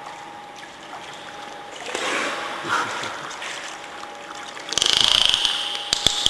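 Pool water lapping and splashing as a dolphin swims up to the pool wall, over a faint steady hum; a louder rushing splash comes about five seconds in, followed by a couple of sharp clicks.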